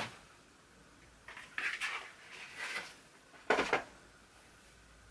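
Unboxing handling sounds: a cardboard gift box and a fabric dust bag being moved about and lifted out, making four short rustles and scrapes, the loudest about three and a half seconds in.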